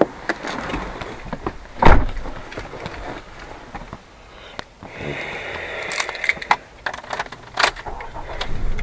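Car cabin sounds while driving: a low road-and-engine rumble with scattered clicks, knocks and rattles, the loudest a sharp thump about two seconds in.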